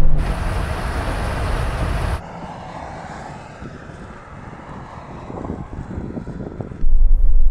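Engine and wind noise inside the turbocharged Suzuki Jimny's cabin at speed during a drag run, cutting off abruptly about two seconds in. A much quieter distant engine follows, approaching and growing slightly louder near the end.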